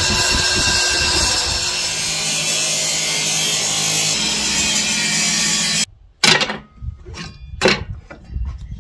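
Power tool cutting through gum timber, a steady harsh cutting noise over a motor hum that cuts off suddenly about six seconds in.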